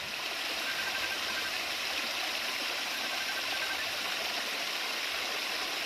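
Water pouring steadily down the rocks of a homemade backyard waterfall, with an even splashing rush. A faint high trill sounds twice over it.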